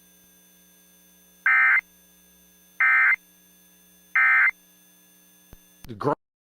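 Emergency Alert System end-of-message signal: three short, identical bursts of shrill digital data tone, evenly spaced about 1.3 seconds apart, followed by a brief low blip near the end.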